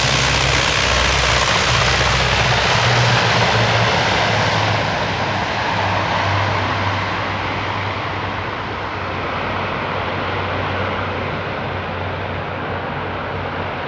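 ATR 42-300 twin-turboprop airliner's engines and propellers running loud, with a steady low propeller drone under a dense hiss. The high hiss dies away after about five seconds and the sound eases gradually.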